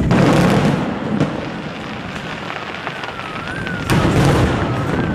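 Aerial firework shells bursting: a loud boom at the start and another about four seconds in, a sharper crack about a second in, and crackling in between. From about three seconds in, a siren wails up and down in the background.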